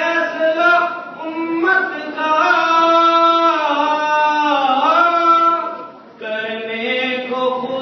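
A man reciting a naat unaccompanied, singing long held notes that waver and bend in pitch. He breaks off briefly about six seconds in, then starts a new phrase.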